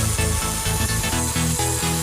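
Background electronic music with a steady, fast beat and bass line.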